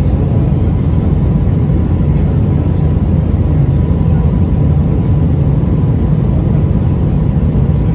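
Steady low cabin roar inside an Airbus A321 in flight, from its engines and the air rushing past the fuselage, with a faint steady tone running through it.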